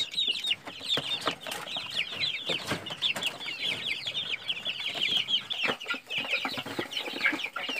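A flock of young chickens peeping: a dense, continuous run of short, high, falling cheeps.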